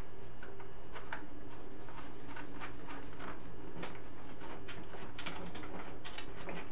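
Scattered faint metallic clicks and taps of a washer and nut being fitted onto a bolt by hand, by feel, over a steady low hum.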